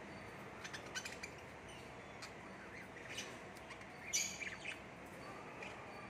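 Small caged parrots, cockatiels and budgerigars, chirping in short, scattered calls, with a louder cluster of calls a little after four seconds in.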